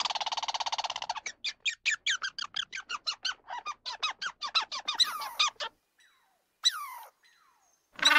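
Animal chirping calls: a trilled call, then a rapid series of short high chirps at about five a second, then a couple of falling squeaks.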